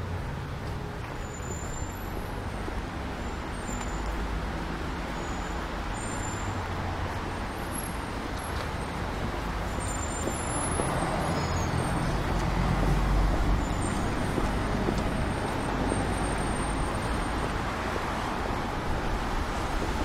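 City street traffic: motor vehicles' engines and tyres rumbling past, with a heavier vehicle swelling loudest about two-thirds of the way through.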